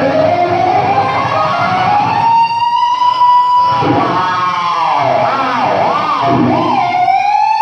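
Electric guitar playing a sustained lead note that slides up and holds, then swoops down and back up in pitch several times, and rises again near the end.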